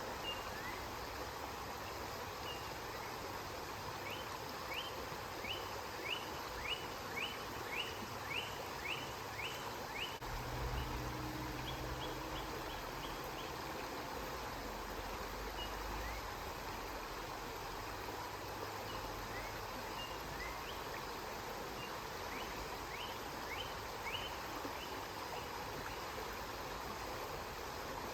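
Steady rush of a flowing river, with a bird calling over it in runs of short rising chirps, about two a second, several seconds in and again near the end. A low rumble joins for a few seconds near the middle.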